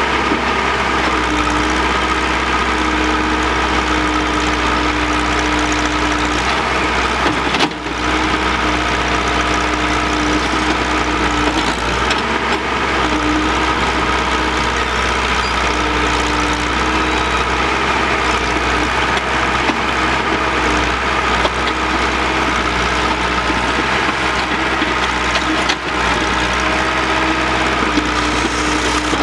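Heavy diesel machinery running steadily: a ten-wheel dump truck tipping its raised bed and an excavator working beside it, with a higher engine note that comes and goes every few seconds.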